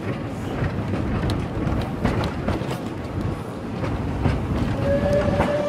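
La Trochita narrow-gauge steam train running along the track, heard from an open carriage window: a steady rumble with the wheels clicking over rail joints. Near the end the locomotive's whistle starts a steady tone.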